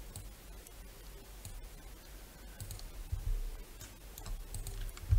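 Scattered computer mouse clicks as nodes are dragged in the editor, with a couple of soft low thumps, one about three seconds in and one near the end.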